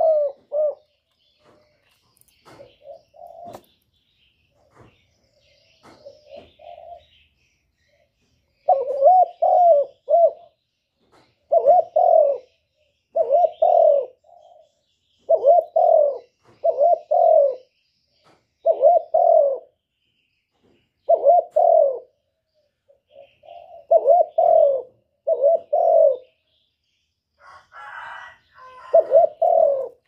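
Male spotted dove cooing close by: a few soft coos in the first seconds, then a long run of loud, repeated short coo phrases about every second and a half. A brief rustle near the end.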